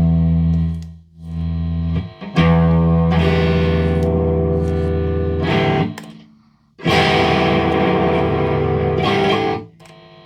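SX Standard Series Stratocaster played through an amp: four strummed chords, each left to ring for one to three seconds and then cut off. Between the chords a faint steady electrical hum remains; this is the buzz reported by the owner.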